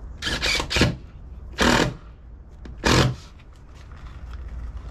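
Three short, loud rasping bursts about a second apart from the vinyl wrap being worked onto a boat hull by hand, over low background noise.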